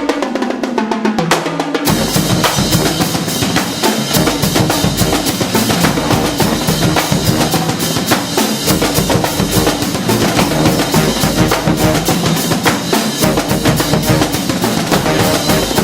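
Drum-heavy music: fast, dense snare and bass drum strikes, getting fuller about two seconds in.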